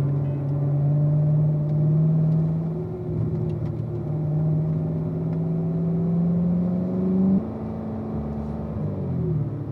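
Road vehicle engine pulling steadily, its pitch creeping slowly upward. About seven seconds in the note drops suddenly, as when the throttle is lifted or a gear is changed. Near the end the engine slows with a falling pitch.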